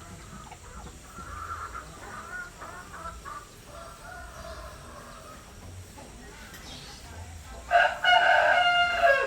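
Rooster crowing once near the end, a loud held call of about a second and a half. Before it, quieter clucking and bird calls.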